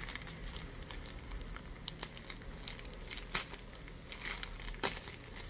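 Thin paper wrapping crinkling and rustling as it is handled and opened to take out drone propellers, with scattered sharp crackles.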